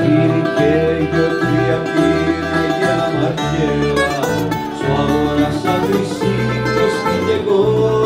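A small Greek band playing live: a bouzouki picking the melody over acoustic guitar chords and a double bass line, with a man singing.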